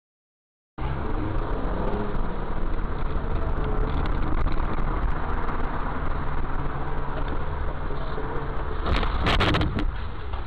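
Car driving, heard from inside the cabin through a dash cam: steady engine and road noise that starts abruptly about a second in. Near the end comes a brief loud noise lasting about half a second.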